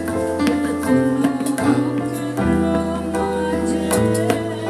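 Instrumental music: plucked string notes over long held bass notes that change every second or so.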